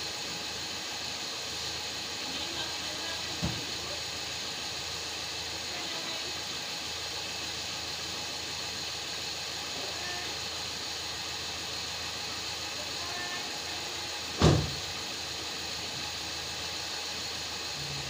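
Steady background hiss with no clear engine rhythm, broken by a light knock about three seconds in and a much louder sharp knock late on.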